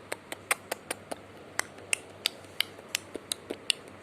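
A quick, irregular series of sharp clicks, about four a second with a short pause a little past one second in, over a faint background hum.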